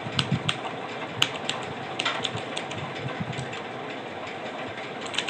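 Keys of a Zebronics mechanical gaming keyboard being pressed: scattered sharp key clicks a few seconds apart, over steady background noise. They turn into a quick run of keystrokes near the end.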